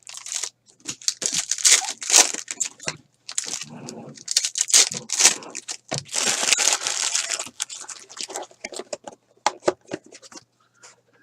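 Trading-card packaging being torn open and crumpled: a run of irregular rips and crinkles that thin out to a few short clicks near the end.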